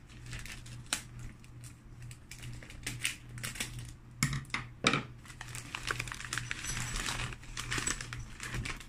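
A plastic mailer bag being cut open with scissors and handled: irregular crinkling and snipping clicks, the sharpest about four and five seconds in.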